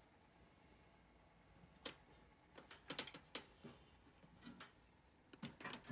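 A cat's claws catching and scratching on carpet as she rolls and paws at the ledge: a sharp click about two seconds in, a quick cluster of scratchy clicks around three seconds, and more near the end.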